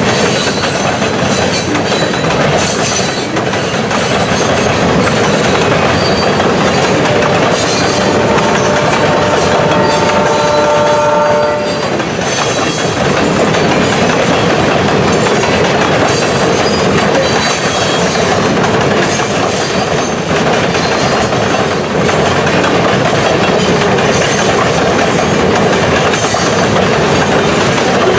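Loaded grain hopper cars rolling past, a continuous loud rumble and clatter of wheels on rail with scattered high-pitched wheel squeals. About a third of the way in, a steady multi-note tone is held for about four seconds.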